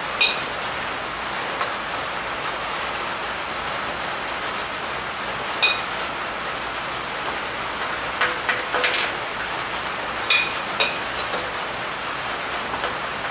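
Steady rain noise, with a few short metal clicks as the crankshaft pulley of a freshly assembled VW 1915 cc long block is handled and turned by hand to check that the engine still turns over.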